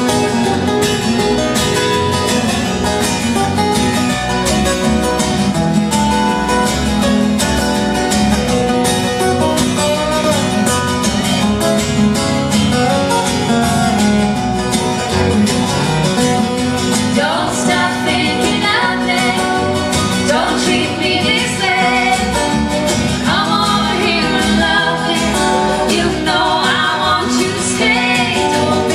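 Live acoustic guitar and electric bass guitar playing a country-style instrumental passage, the acoustic guitar picking the melody over a steady bass line.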